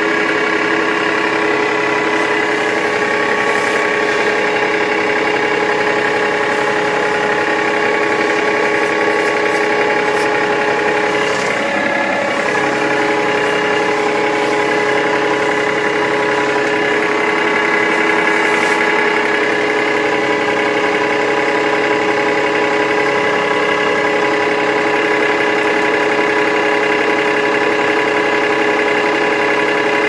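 Massey Ferguson tractor's diesel engine idling steadily, heard from inside the cab while the tractor stands still.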